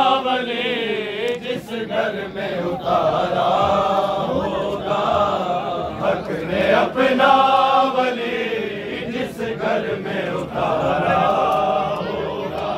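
A group of men chanting together in unison, in long drawn-out phrases that come again and again.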